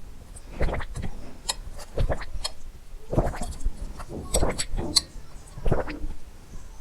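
Close-miked swallowing of water: a series of gulps, about one a second, with small wet mouth clicks between them.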